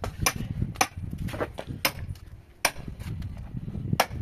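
A series of sharp knocks, about six in four seconds at uneven spacing, over a low rumble.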